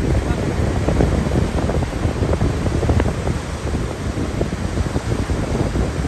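Atlantic surf breaking and washing in over the shallows, a steady rushing wash, with wind buffeting the microphone.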